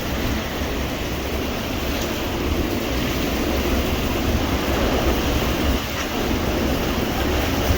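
Hurricane-force wind blowing steadily in a dense, train-like rush, with a deep rumble of wind buffeting the microphone.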